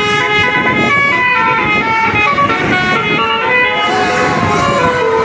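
Basuri (telolet) multi-tone bus horn on a Putra RB bus playing a tune, held on continuously: several horn notes sound together and step from pitch to pitch every fraction of a second.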